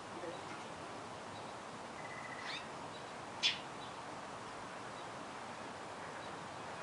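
A songbird's single short, sharp "chet" call about three and a half seconds in, the alarm call of a parent bird near its fledgling, preceded about two seconds in by a fainter thin call that holds a pitch and then rises.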